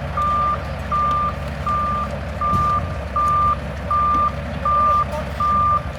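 Bulldozer's reversing alarm beeping steadily, about eight evenly spaced beeps at one pitch, over the low, steady rumble of its diesel engine as it backs up.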